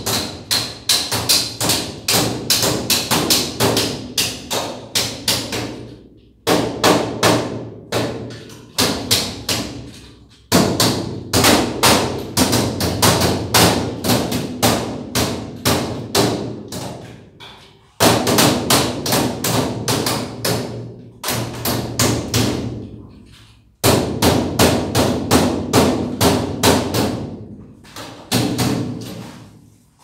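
Fast, even runs of sharp knocks, about four to five a second; each run starts loud and fades away before the next one begins, over and over.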